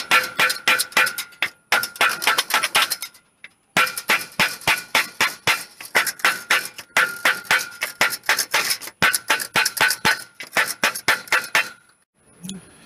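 Wooden batten beating the edge of a powder-coated iron sheet over a bar to bend it, rapid blows of about four or five a second, each with a metallic ring. The beating pauses briefly twice and stops about a second before the end.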